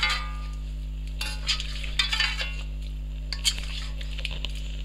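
Metal slotted spoon scraping and clinking against a karahi as chunks of marinated chicken are stirred and turned in melted butter, a few strokes spread through, over a light sizzle of frying.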